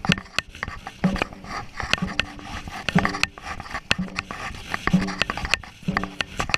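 Dragon boat crew paddling in time: a low beat about once a second with each stroke, with splashes and knocks of paddles in the water and against the boat.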